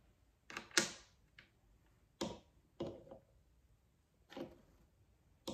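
About six light, irregularly spaced clicks and taps as small pieces of tumbled glass are picked up and set down on a glass pane.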